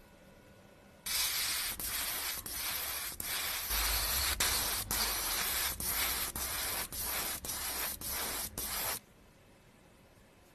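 Airbrush spraying paint with a steady hiss, broken by brief gaps about twice a second, starting about a second in and stopping about a second before the end.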